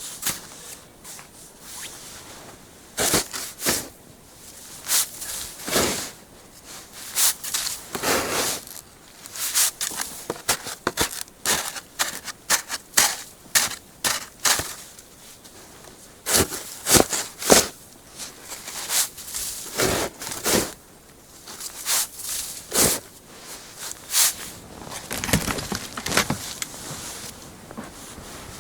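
Shovel digging in snow, with irregular crunching strokes, about one every half second to a second, and short pauses between bursts.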